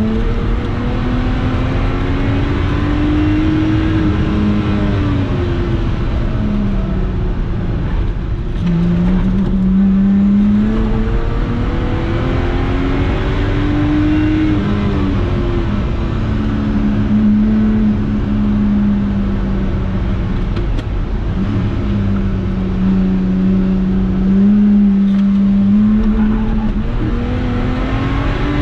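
Lotus Exige 350 Sport's supercharged 3.5-litre V6 under hard track driving, heard from inside the cabin. The engine note climbs under acceleration, drops back at gear changes and braking, and climbs again, over and over through the lap.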